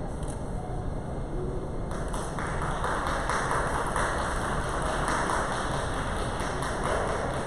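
Crowd noise in a large, echoing hall, swelling about two seconds in and then staying dense with many faint taps.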